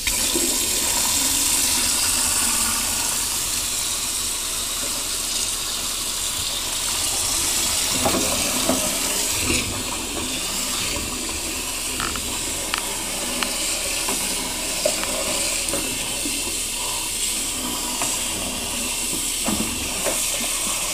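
Water running steadily from a kitchen faucet into a stainless-steel sink, a continuous rush, with a few faint knocks now and then.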